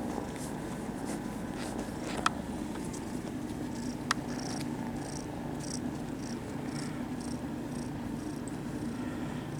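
Kittens purring steadily, close up, with two sharp clicks about two and four seconds in.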